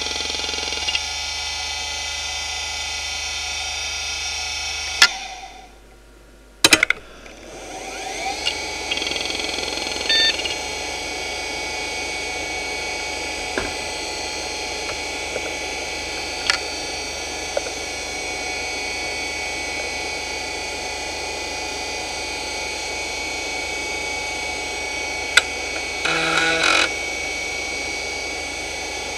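Hitachi DK225A-14 2.5-inch two-platter hard drive (4464 rpm) running with a steady high whine, then spinning down about five seconds in. After a few clicks it spins back up with a rising whine and settles into a steady whine, with occasional single head-seek clicks and a short burst of seek clicks near the end as the BIOS detects the drive.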